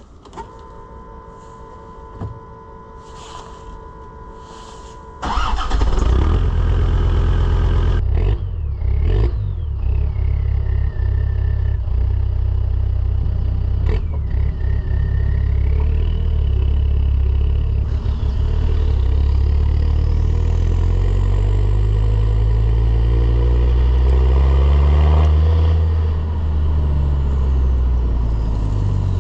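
Land Rover Defender TD5 2.5-litre five-cylinder turbodiesel starting about five seconds in, then running with a few brief blips of the throttle. Near the end it revs up slowly and drops back to idle.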